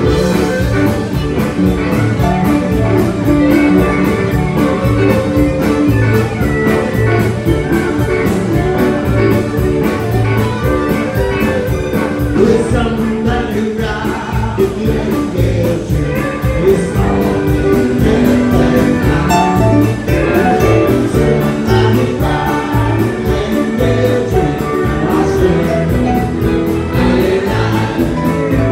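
Live band playing a song with fiddle, electric guitars, bass, drums and keyboards, with a lead vocal over a steady beat.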